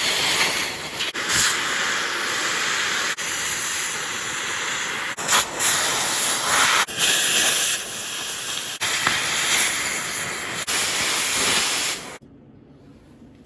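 Cutting torch hissing steadily as it cuts steel. The hiss stops suddenly about a second before the end.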